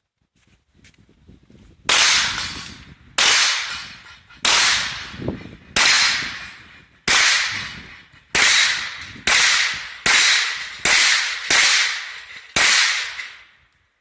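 Eleven shots from a 9mm Beretta Cx4 Storm semi-automatic carbine, each a sharp crack followed by a short echo. The first six come about every 1.3 seconds, then the pace quickens to about one every 0.7 seconds.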